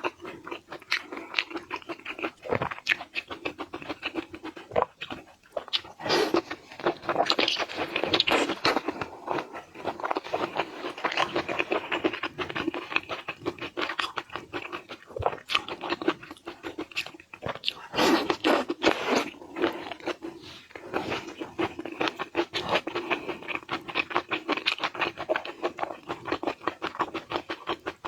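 Close-up chewing and crunching of food, with dense irregular crunches and wet clicks throughout.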